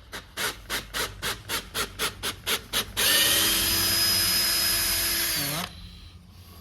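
Cordless drill/driver working a bolt: a row of sharp clicks, about four a second, then the motor runs steadily for about two and a half seconds and winds down.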